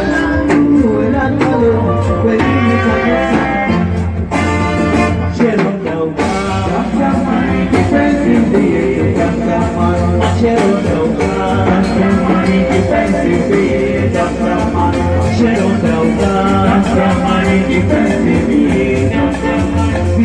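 Live band playing dance music with a steady beat, led by saxophone over drums, amplified through a PA system.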